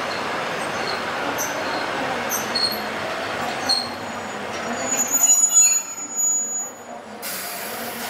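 Sapporo City 3300-type streetcar rolling slowly into a stop, its steel wheels giving short high squeaks on the rails. About five seconds in comes a louder, thin, sustained squeal as it brakes, and near the end a sudden steady hiss starts.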